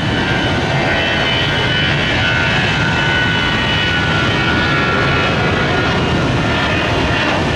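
Twin-engine Airbus A320-family jet airliner at takeoff power during its takeoff roll. The engines give a steady roar with a high fan whine.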